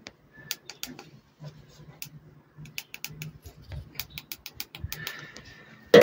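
Irregular light clicks and taps of hands handling a loader's dismantled display circuit board and its wiring, ending in one louder knock.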